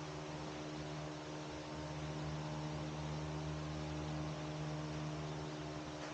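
Steady electrical hum over a constant hiss, with no distinct knocks or clicks.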